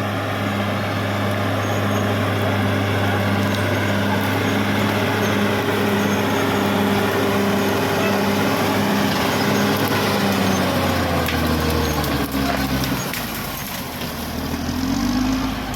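Caterpillar D6R XL bulldozer's diesel engine running under load, with a regular pulsing beat of about one and a half a second. It eases off about three-quarters of the way through and rises in pitch again near the end.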